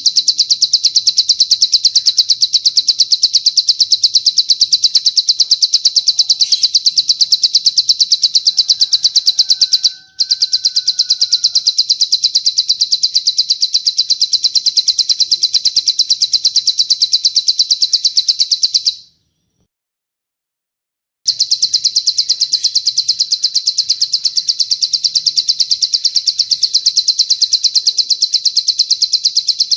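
Long cililin bird song: a rapid, high-pitched trill of quick repeated notes, used as a tutor recording for caged plain prinias (ciblek sawah). It breaks off briefly about ten seconds in, and stops for about two seconds a little past the middle before resuming.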